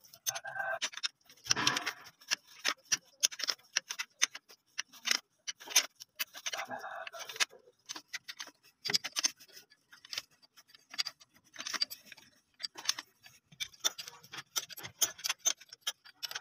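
A spanner working the mounting bolts of a gearbox PTO, making irregular sharp metallic clicks and ticks, sometimes in quick clusters, with a few short scrapes of metal on metal near the start and about seven seconds in.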